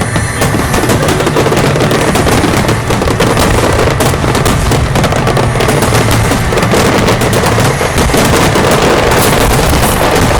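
Wide starmine fireworks: a loud, dense barrage of aerial shells launching and bursting in rapid, overlapping succession, with continuous crackling between the reports.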